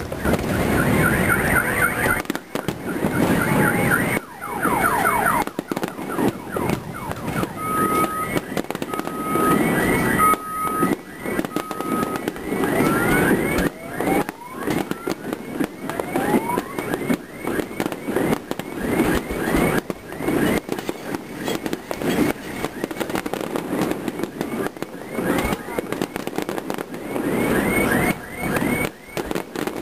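Aerial fireworks display: shells bursting in rapid, repeated bangs, with salvos of whistling fireworks giving many short rising whistles and a few longer rising whistles from shells going up. A short beeping tone sounds four times near the middle.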